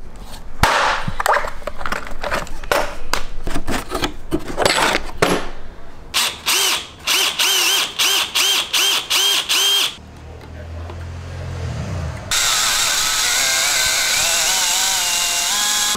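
A plastic tool case is handled and clicked open with a string of sharp clicks and knocks. Then a cordless drill is pulsed in about eight short bursts and run steadily, boring a hole through a pine batten with a wood bit; its pitch shifts as the bit cuts.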